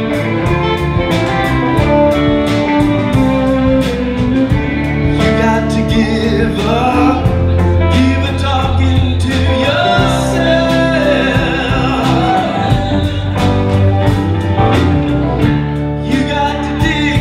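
A live band playing: electric guitars, bass and drums keeping a steady beat, with a lead singer's vocals over them through the middle of the passage.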